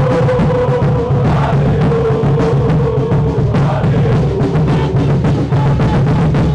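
Music with heavy drums and percussion over a steady low bass and one long held tone that drifts slowly down. It cuts off sharply at the end.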